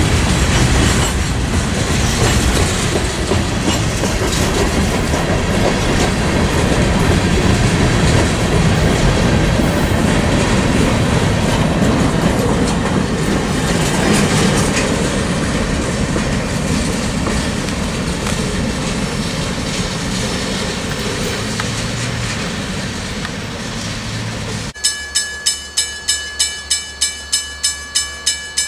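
Freight cars rolling past close by: a steady rumble and hiss of wheels on rail with clickety-clack over the rail joints. About 25 seconds in it cuts abruptly to a grade-crossing bell ringing in a quick, even rhythm of about three strokes a second as the train approaches.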